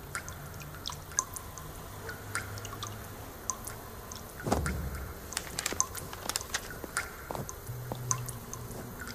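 Quiet room ambience: scattered small clicks and drip-like ticks at irregular intervals over a low steady hum, with a soft low thump about four and a half seconds in.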